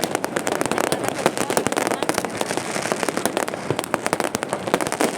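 Fireworks going off non-stop: a dense run of overlapping pops and bangs with no pause, one sharper bang about a second in.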